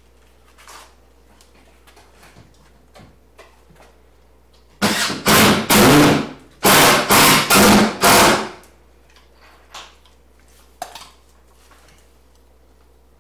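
Power driver running a screw into wood: one burst of about a second and a half, then four short bursts as the screw is driven home.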